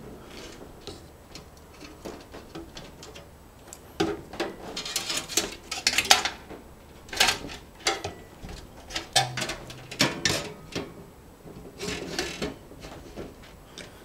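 Clicks and clattering rattles of hands working inside an open metal computer tower case, handling cables and drive parts; the first few seconds are quiet, then irregular clusters of sharp clicks begin about four seconds in and continue almost to the end.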